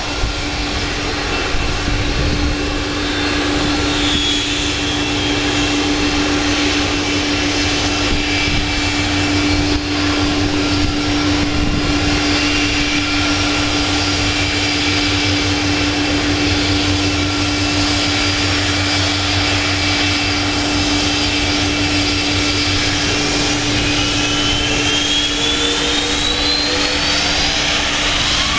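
Jet airliner engines running loudly and steadily, with several high whining tones over a low rumble. Over the last few seconds the whines rise in pitch.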